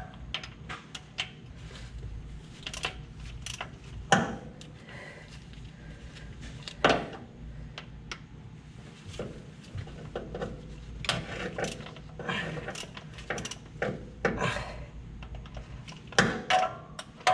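A socket wrench and extension clicking and clinking against metal while the oil cooler bolts are worked loose under a truck engine. The clicks and clanks come at irregular intervals, with louder knocks about 4 s, 7 s and 16 s in.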